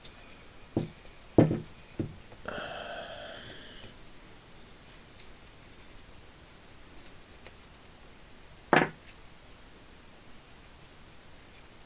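Hex key clicking and knocking against a folding shovel's plastic handle while a bolt is unscrewed, with a short squeak about two and a half seconds in and a single sharp knock near the end.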